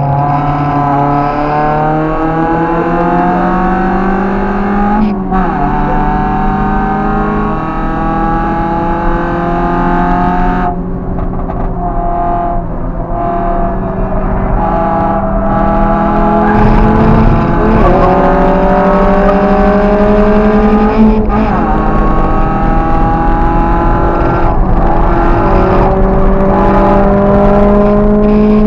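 Car engine heard from inside the cabin under hard acceleration on track, its pitch climbing steadily through each gear and dropping sharply at every gear change, several times over. About eleven seconds in it eases off briefly before pulling hard again.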